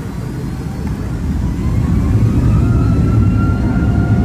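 Airliner engines heard from inside the cabin, spooling up: a low rumble that grows louder about a second and a half in, with a thin whine rising in pitch.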